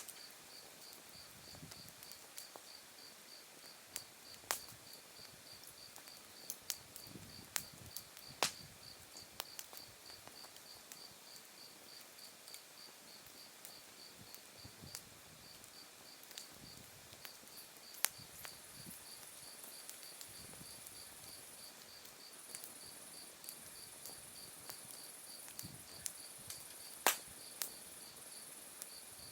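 Autumn night insects singing: a cricket chirping in a fast, even pulse over a continuous higher trill. A wood campfire crackles and pops now and then, with a few sharper pops standing out.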